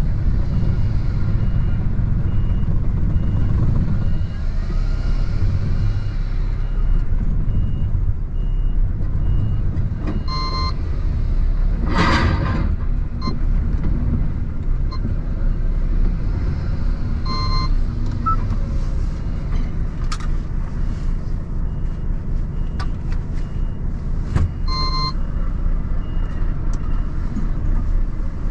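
Renault T480 truck's diesel engine idling, heard as a steady low rumble inside the cab, with a reversing alarm beeping at a regular pace throughout. A short hiss of air comes about twelve seconds in, and a brief chime sounds three times.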